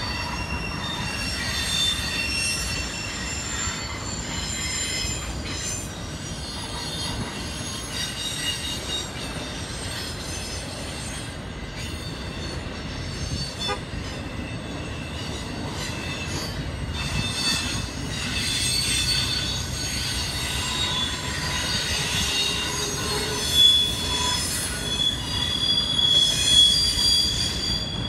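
Intermodal freight train of highway trailers rolling past with a steady rumble, its steel wheels squealing on the rail in several high, wavering tones. The squeal grows louder in the last few seconds.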